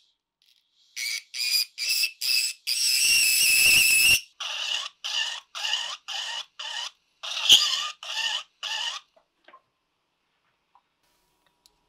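Rotary tool with a small cylindrical abrasive bit worked against a silver elephant bracelet in a run of short strokes, a high-pitched whine with each touch and one longer pass about three seconds in. A sharp tick about seven and a half seconds in is the loudest moment; the strokes stop about nine seconds in.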